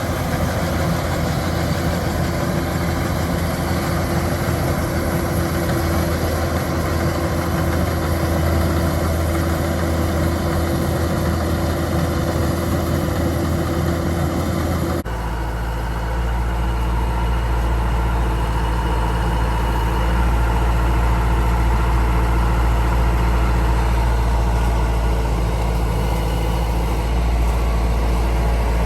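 Kubota DC-105X combine harvester's diesel engine running steadily. About halfway through, the sound changes abruptly to a deeper, slightly louder drone.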